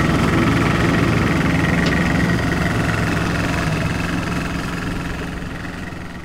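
Outboard motor of a small oyster dory running steadily under way, fading out gradually over the second half.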